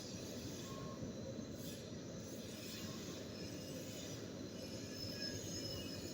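Machine tool cutting metal on a gate valve part: a steady low rumble with brief, faint high-pitched squeals from the cut, mostly in the second half.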